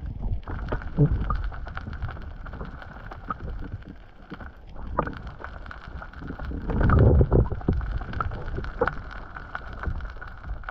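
Muffled underwater sound picked up by a submerged camera: a low rush of moving water with scattered knocks and clicks against the housing, swelling loudest about seven seconds in.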